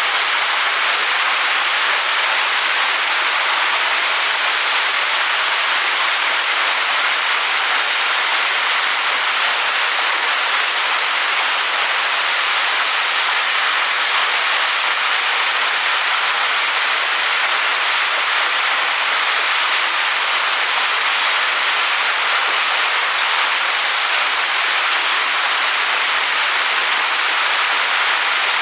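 Waterfall splashing onto rocks, a steady, even hiss of falling water with little low rumble.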